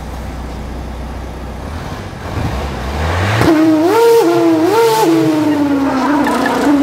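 Opel Corsa engine exhaust blowing through a bicycle inner tube stretched over the tailpipe, the homemade 'F1 sound' trick. A low idle rumble gives way, as the engine is revved, to a loud buzzing whine from the rubber tube that jumps up in pitch twice, about a second apart, then slowly falls again.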